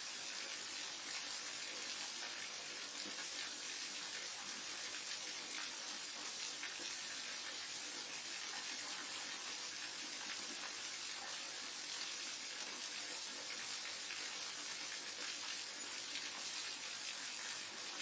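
Waterfall: a steady rush of falling water, an even hiss that does not change.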